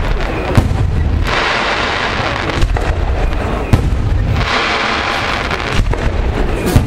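Aerial fireworks shells bursting: three sharp bangs, about half a second in, near the middle and near the end, with smaller pops and a low rumble between them, and a hissing crackle that comes and goes.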